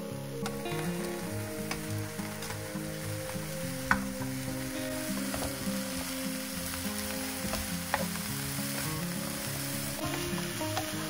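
Food sizzling in hot oil in a frying pan while being stirred, with two sharp knocks about four and eight seconds in. The sizzling stops near the end, and soft background music plays under it.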